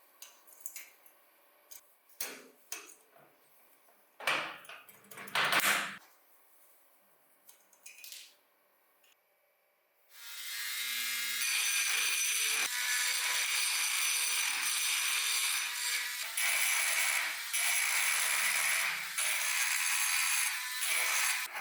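Small handling clicks and a few short scrapes, then from about halfway a steady, continuous abrasive scraping on a diecast model car part, as in rust removal by hand.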